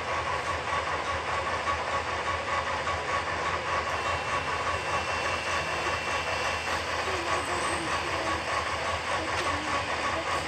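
Railway level-crossing warning signal ringing its electronic bell in a fast, even pulse while its red lights flash, over a steady rushing noise.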